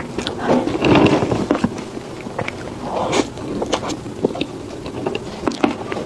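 Close-miked chewing of soft cake: irregular wet mouth clicks and smacks with soft bites.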